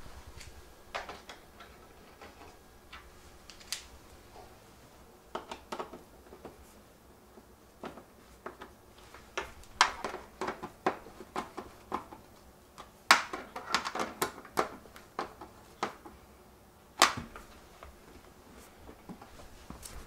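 A screwdriver and the plastic control panel clicking and clacking as a new panel is screwed onto a Maytag dishwasher door: irregular sharp clicks, some in quick clusters, the loudest run coming about two thirds of the way through.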